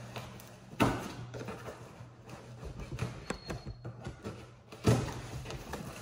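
Cardboard shipping box being opened by hand: flaps and packing tape rustling and crackling, with two heavier thumps, one about a second in and one about five seconds in.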